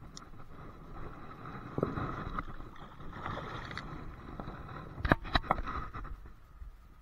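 Shallow river water splashing and sloshing as a coho salmon is let go by hand, with a cluster of sharp knocks a little after five seconds.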